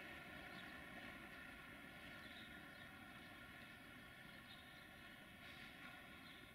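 Faint, steady running of an LE5100 kW (060-EA) electric locomotive rolling slowly in with a freight train, mostly an even hiss.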